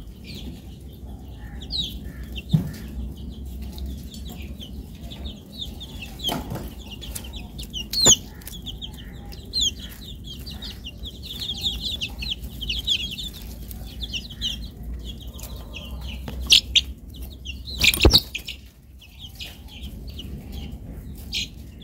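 Young chicks peeping, a steady stream of short high cheeps. A few sharp knocks stand out, the loudest near the end.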